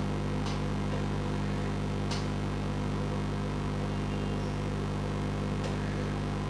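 Steady low electrical hum, with a few faint light clicks of handling.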